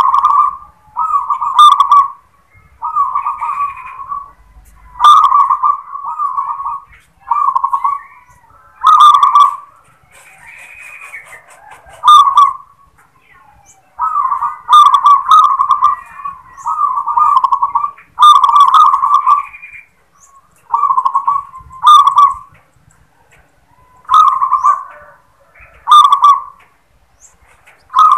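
Caged local zebra dove (perkutut) singing its 'klar ketek kuk' song: rolling coo phrases repeated over and over, one every second or two, some opening with a sharp, clipped note.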